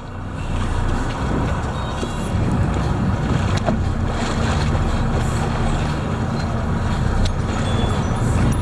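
Escort boat's engine running steadily, a low drone under a hiss of wind and water.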